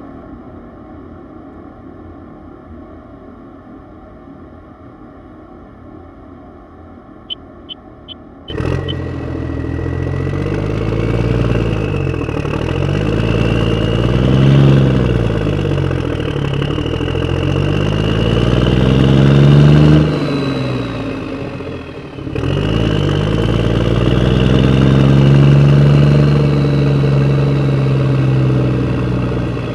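A heavy engine comes in suddenly about eight seconds in and revs up and down over and over. There is a short break a little after twenty seconds. Before it, there is only a faint hiss with a few short, high pips.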